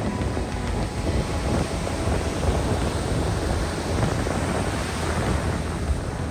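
Wind buffeting the microphone over the sound of surf breaking on the beach.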